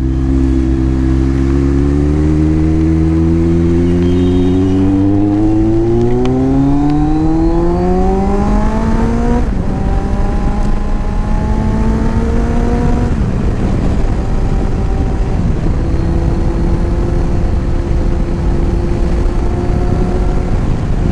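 Motorcycle engine pulling hard, its pitch rising steadily for about nine seconds before dropping at an upshift. It climbs briefly again, drops at a second upshift, then settles to a steady cruise, over a constant rush of wind on the helmet microphone.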